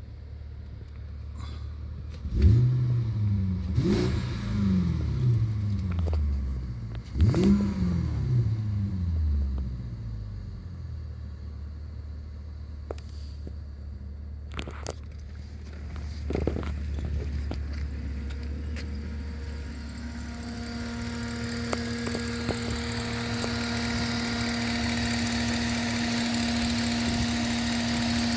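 BMW 545i's 4.4-litre N62 V8 revved three times in quick blips, the revs falling back to idle each time, then idling steadily. From about two-thirds of the way in, a steady hum with a rising hiss builds over the idle.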